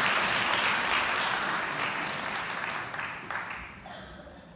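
Audience applauding, the clapping steadily fading and dying away by the end.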